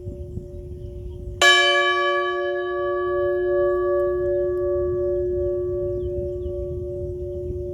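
A bell struck once, about a second and a half in, ringing out with many bright tones that fade away over several seconds. Underneath, the lower hum of the previous stroke rings on with a slow, regular wavering.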